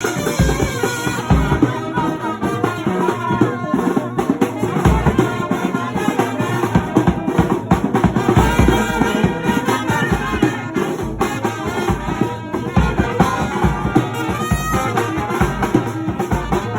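A brass band playing dance music, trumpets over a drum kit keeping the beat.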